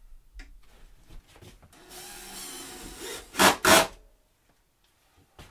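Cordless drill-driver running inside a wall cabinet, driving a screw into its back panel: a steady run of about a second and a half, then two loud short bursts of the motor, with quiet after them.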